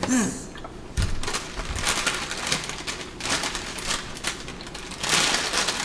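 Eating sounds from a takeout meal: utensils clicking and scraping against a food container, in short bursts with a louder scrape about five seconds in.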